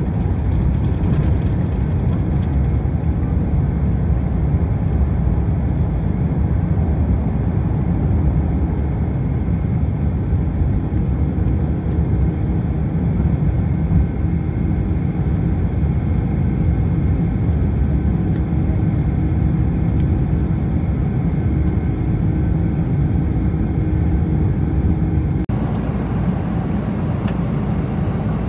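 Steady, deep cabin noise inside a Boeing 747-400 climbing out after a night takeoff: the even rumble of its four jet engines and the airflow. About three seconds before the end it changes abruptly to a slightly lighter, steady cabin hum.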